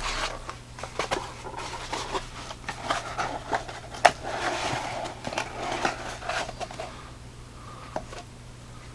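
Hands handling a flashlight: scraping and rustling with scattered sharp clicks and taps for about seven seconds, then quieter, with a single click near the end.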